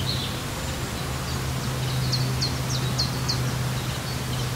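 Woodland ambience: a songbird repeating a short, high, flicking note about three times a second, starting about a second in, over a steady low hum.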